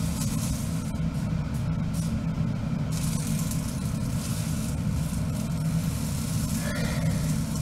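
Steady low mechanical hum running unchanged throughout.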